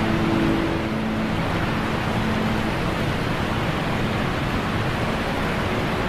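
Steady rushing noise of a waterfall, with the tail of background music fading out in the first couple of seconds.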